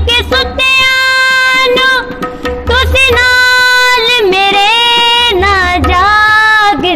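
Punjabi Christian devotional song: a young woman's voice holds long wordless notes that slide between pitches, accompanied by a tabla pair whose deep bass drum booms a few times.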